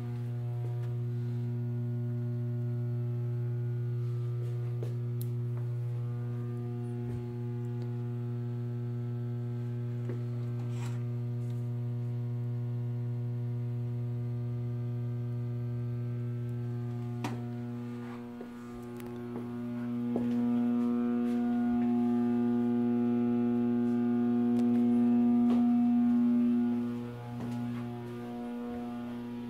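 Steady low electrical hum with a stack of even overtones, swelling louder about two-thirds of the way through and dipping briefly near the end, with a few faint ticks.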